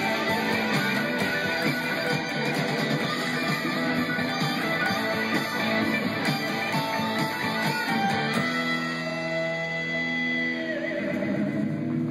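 Squier Stratocaster electric guitar played in a busy run of notes, then held ringing notes from about eight seconds in, with a bend on a sustained note near the end.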